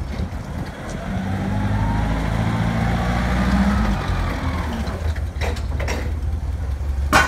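Daewoo G25S forklift's Hercules 2.7-litre gasoline engine running as the truck drives up, rising in pitch and then easing off about four seconds in, with a whine rising and falling above it. A few short clacks follow, and a brief sharp noise sounds just before the end.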